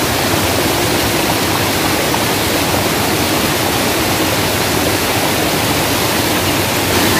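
Waterfall rushing steadily, a continuous loud hiss of falling water.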